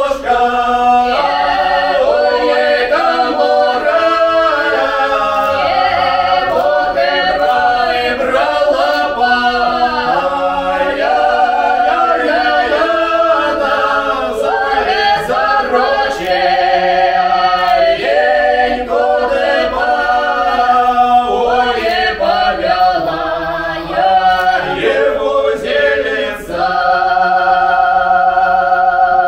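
Small ensemble of voices singing a Don Cossack folk song unaccompanied in several-part harmony, settling on a long held chord near the end.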